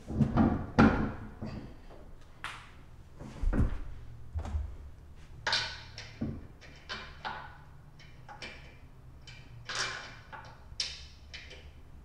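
Irregular thunks and metallic clinks as a Honda Civic Type R wheel is seated on the hub and its lug nuts are threaded on by hand, with a couple of heavier knocks a few seconds in.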